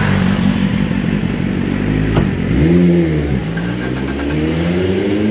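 Engine and road noise of a moving vehicle, heard from inside while riding. About halfway through there is a sharp click, and the engine note rises and then falls as the vehicle speeds up and slows down.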